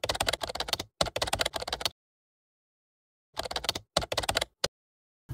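Computer keyboard typing sound effect: rapid runs of key clicks, each run about a second long. The clicks pause for over a second midway, then resume in shorter runs.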